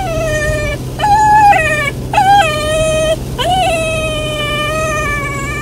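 Golden Retriever puppy whining, four high-pitched cries in a row, the last drawn out for over two seconds. She is distressed at riding in the car.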